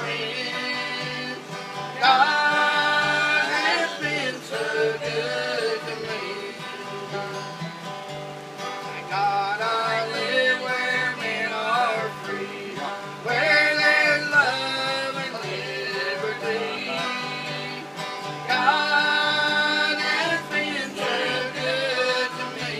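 An acoustic guitar strummed to accompany a man and two women singing a slow, country-style song together, with the voices swelling louder at the start of several phrases.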